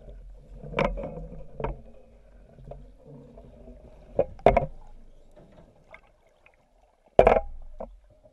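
A great white shark bumping and pushing against a steel shark cage, heard underwater: a series of sharp knocks over murky water noise, the loudest about four and a half and seven seconds in.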